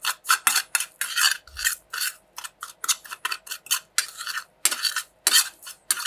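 A dry spice rub of brown sugar, paprika, salt and black pepper being stirred together in a bowl: a utensil scraping round the bowl in quick, even strokes, about three or four a second.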